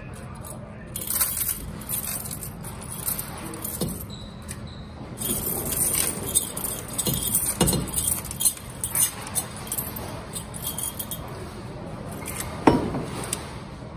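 Loose coins clinking and jingling as they are poured from a plastic bottle and pushed by hand into a coin-counting machine's tray, with one louder knock near the end.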